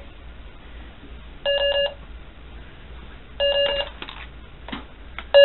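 Short electronic beep from a battery-powered 1999 Hess toy's sound chip, a phone-like tone lasting about half a second and repeating about every two seconds: three times, the last near the end.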